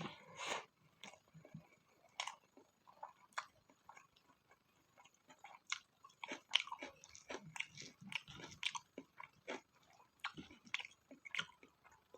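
Close-miked mukbang chewing: biting and chewing spicy pork fat, with many quick, irregular wet clicks and crunches, busiest in the middle.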